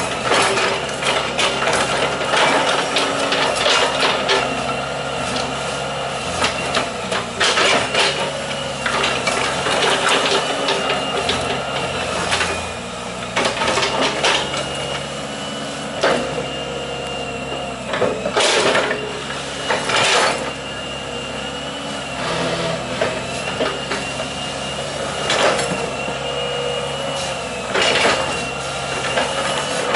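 Hitachi EX120 hydraulic excavator's diesel engine running steadily, with a wavering high whine and repeated metal clanks and knocks from the bucket, linkage and tracks as it works mud.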